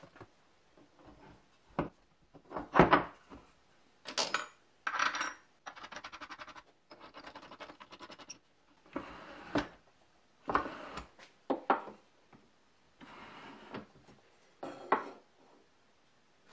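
A series of separate knocks, clinks and short rattles as plywood trunnion parts, metal bolts and washers are handled and fitted together, with a stretch of rapid ticking about six to eight seconds in.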